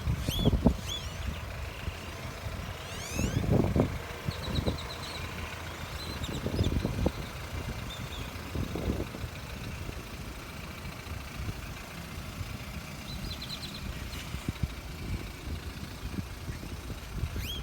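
BMW 328i engine running with a low rumble that swells irregularly, the sound the owner presents as a bad engine noise. Birds chirp and trill over it.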